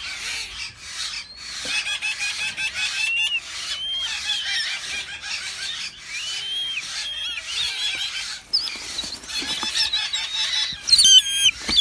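Downy raptor chicks calling: a steady run of short, high, thin cheeps and squeals with small pitch slides. The calls turn louder and quicker near the end.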